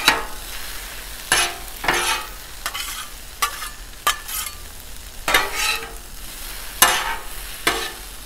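Two metal spatulas scraping and clacking on the steel top of a Blackstone griddle, about one uneven stroke a second, as broccoli, onions and rice noodles are tossed together. Steady sizzling of the frying food runs beneath.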